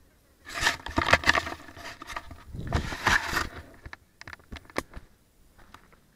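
Dry branches, twigs and leaves scraping and crackling against the mountain bike and its camera as it pushes through brush. Two loud bursts of rustling and scraping are followed by scattered snaps and clicks.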